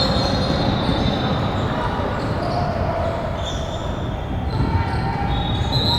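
Gym noise during a youth basketball game: a ball bouncing, players and spectators talking in the echoing hall, and a few drawn-out high squeaks.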